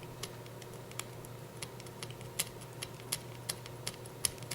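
Screwdriver tip scratching the painted metal of an airsoft gearbox shell around the bushing seats: a string of short, irregular scraping clicks. The paint is being roughened so that epoxy will hold the bushings.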